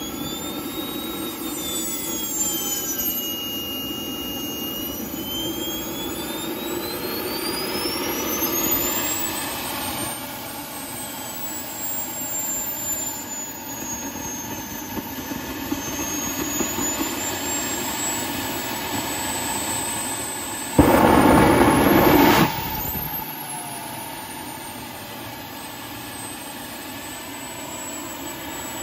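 Small single-combustion-can turbine jet engine running, its high whine gliding up and down in pitch. About two-thirds through comes a loud roar for about a second and a half, and then the whine falls away as it winds down. The engine's two main shaft bearings are bad, cooked by the heat.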